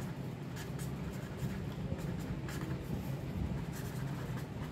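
Pen writing on a notebook page: a string of short scratchy strokes as words are written out, over a steady low hum.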